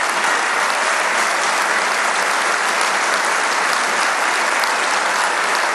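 Large audience applauding, a steady, dense clapping that holds at the same level throughout.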